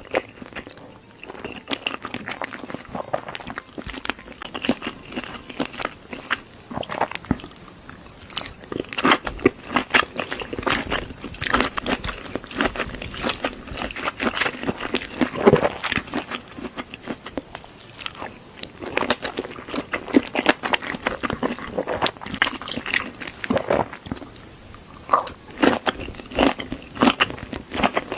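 Close-miked chewing and mouth sounds of a person eating creamy cheese pasta: many irregular short, wet clicks and smacks.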